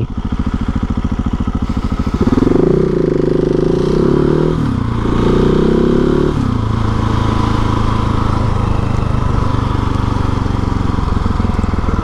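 Husqvarna 701 Supermoto's single-cylinder engine under hard acceleration: the revs climb about two seconds in, dip and climb again, drop at a gear change and rise once more, then settle to steady running at a lower pitch from about six seconds in. Wind hiss on the microphone runs underneath.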